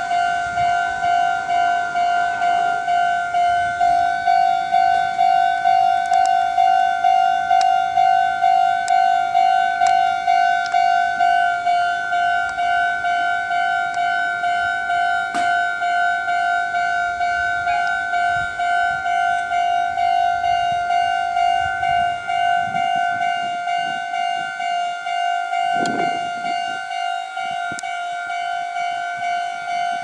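Japanese railway level-crossing alarm bell ringing in an even, repeating clang, sounding the warning that a train is approaching or passing.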